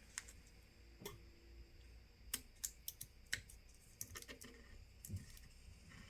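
Faint, irregular light clicks and taps of small hand tools working on an opened smartphone during a battery and screen repair.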